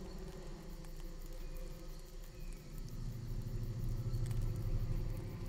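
Outdoor night ambience: a steady low rumble that swells about three seconds in, with faint scattered clicks above it.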